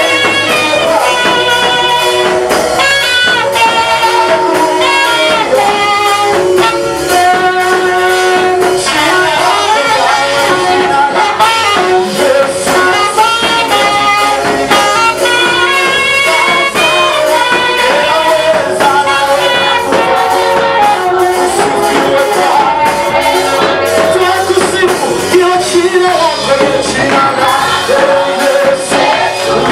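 A church praise band playing with singing voices, a steady beat and percussion, continuous throughout.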